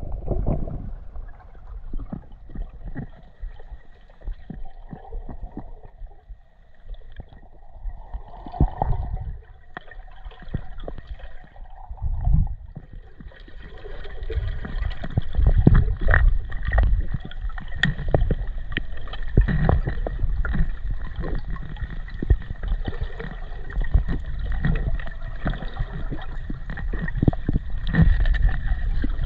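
Water gurgling and sloshing, heard muffled and heavy in the low end, with many scattered knocks and thumps; it grows louder and busier about halfway through.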